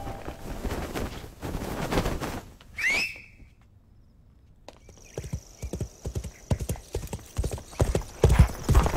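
Horse hooves galloping in a film soundtrack, with a short high call about three seconds in. A brief near-silent pause follows, then the hoofbeats come back and grow louder near the end.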